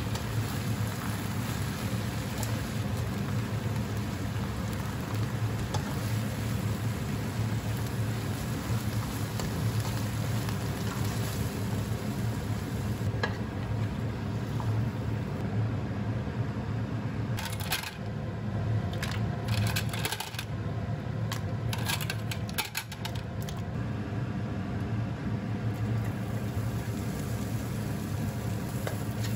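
Stir-frying in a non-stick wok: a steady sizzle over a low hum, with a run of spatula clicks and scrapes against the pan in the middle stretch.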